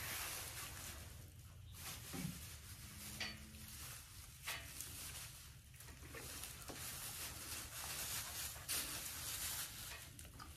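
Faint rustling and crackling of straw bedding as feet and hooves shift in it, with a brief low tone about three seconds in.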